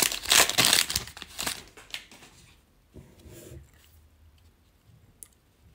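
Foil trading-card pack wrapper crinkling and tearing as it is pulled open, for about two seconds, then quieter handling of the cards with a few faint ticks and a short low hum about three seconds in.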